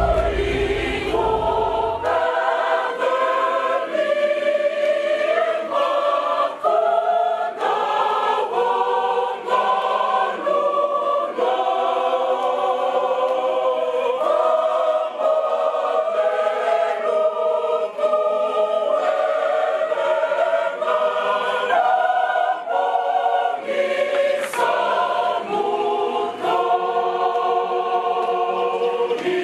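Church choir of women singing a Christmas carol together in parts, the notes moving in steady phrases. A low rumble underneath stops about two seconds in.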